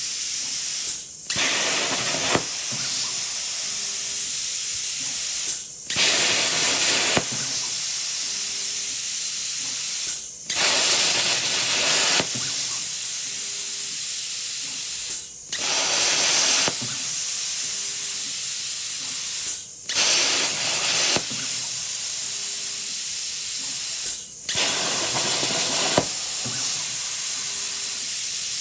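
CNC plasma cutter torch hissing as it cuts sheet metal. The arc stops briefly about every five seconds, then starts again louder for a second or so before settling back to a steady hiss.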